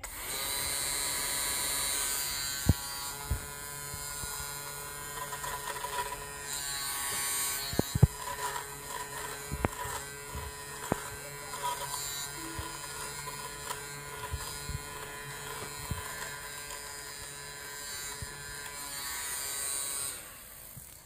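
Nova electric lint remover (rechargeable fabric shaver) running steadily with a motor hum as it is moved over a cotton shirt, its rotating blades shaving off lint and fuzz, with scattered sharp ticks. It stops near the end.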